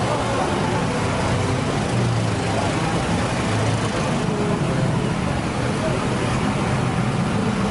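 Mitsubishi van's engine running at walking pace as it creeps past close by, a steady low hum.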